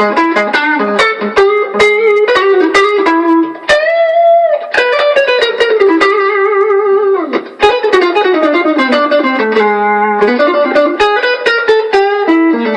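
Stratocaster-style electric guitar with single-coil Alnico 5 pickups played clean through a line boost, compressor and amp with reverb: a continuous flow of picked single notes and chord fragments, with vibrato wavering on held notes around four seconds in and again near ten seconds.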